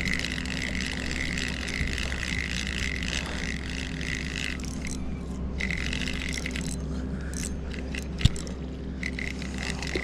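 Steady rush of water pouring over a dam, with a fishing reel being cranked as a hooked fish is brought in; the whirring of the reel stops twice, and there is one sharp knock a little past eight seconds in.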